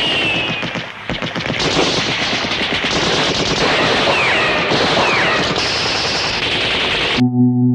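Rapid, continuous machine-gun fire, the shots too close together to count, with a few brief high whistles over it. Near the end it cuts off abruptly and a steady droning music chord begins.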